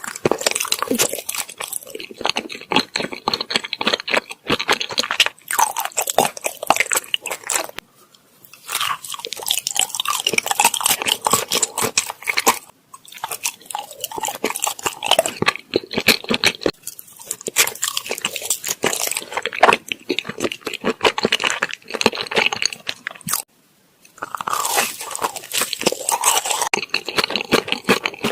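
Close-miked chewing of soft rice cake: a dense run of wet, sticky mouth clicks and smacks, broken by three brief pauses.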